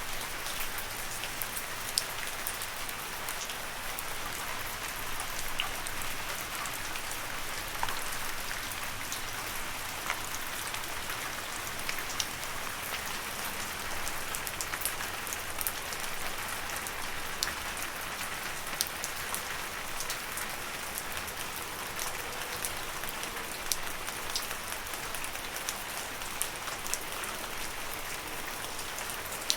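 Steady rain pattering on leaves, with many separate drops ticking sharply through the hiss.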